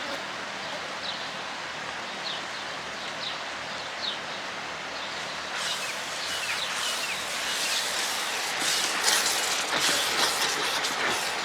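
Spice masala sautéing in hot oil in a cooking pot: a steady sizzle that grows louder and more crackly about halfway through. Short high bird chirps recur through the first half.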